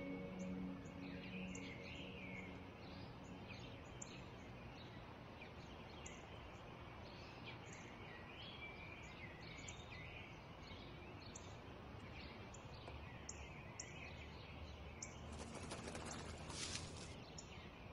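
Sparrows chirping: many short, high chirps scattered over a steady outdoor background hum. A brief hiss rises and falls about three-quarters of the way through.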